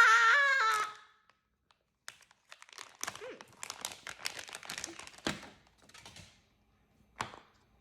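Crinkling and tearing of a plastic bag being worked open, in scattered bursts, with a couple of sharp clicks near the end. A brief high-pitched wavering tone sounds at the very start.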